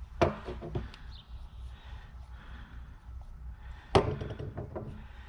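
A few light clicks and knocks of hard plastic being handled on top of a plastic barrel, with one sharp tap about four seconds in.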